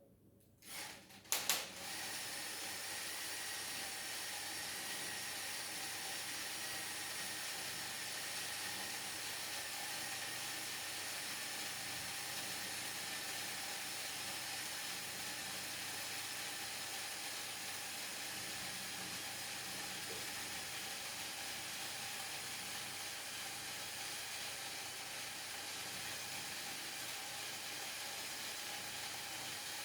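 A couple of sharp clicks about a second in, then a steady whirring hiss from the gear train of a LEGO Technic 42082 crane running under load.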